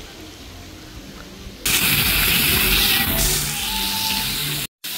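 Soft music, then about two seconds in a sudden loud, steady rushing hiss that breaks off just before the end.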